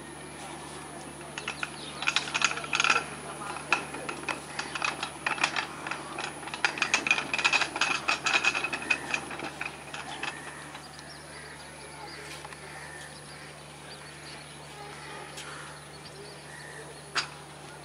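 Metallic clattering and clanking from a slow-moving passenger train's coaches over the rails and points. It is a dense run of rapid clicks that dies away after about ten seconds, with one sharp click near the end.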